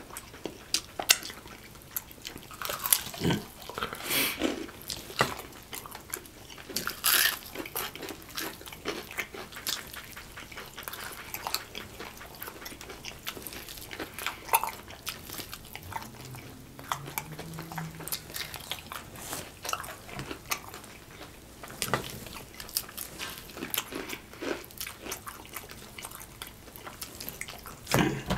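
Eating sounds from fried chicken legs: biting, chewing and pulling meat off the bone, heard as many short crackles and wet clicks.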